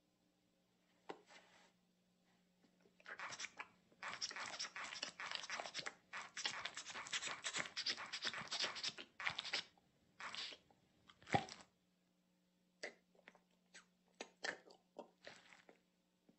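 Wet sucking and slurping of a cartoon baby's mouth on bare skin, in dense smacking bursts for several seconds, then a few separate lip smacks near the end.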